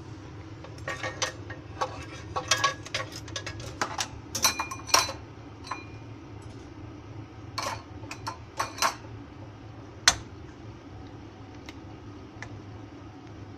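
Stainless-steel ladle clinking and scraping against the side of a stainless-steel soup pot in quick runs of sharp clinks, ending with one single clink about ten seconds in. A steady low hum runs underneath.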